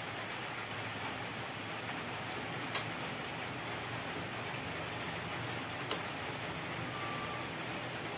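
A ladle clicking against the side of a wok of simmering soup twice, over a steady background hiss.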